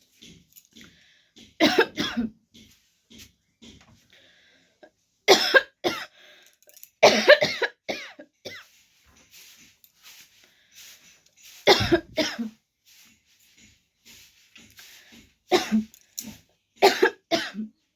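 A woman coughing in six short bouts a few seconds apart, a real cough that she says she has this winter.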